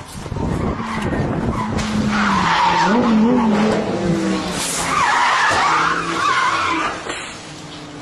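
Race cars braking hard past the trackside, tyres skidding and squealing with engine notes wavering and falling as they slow. The tyre noise swells about two seconds in and again about five seconds in, then dies down near the end.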